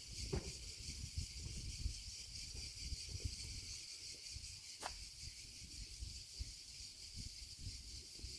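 Insects chirring in a steady high-pitched chorus, with low rumbles of wind or handling on the microphone and one sharp click about five seconds in.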